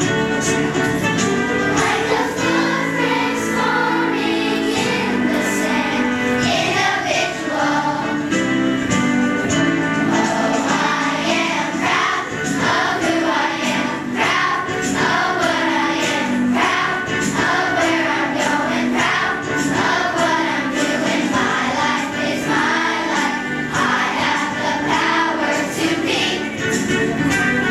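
A choir singing a song in several parts.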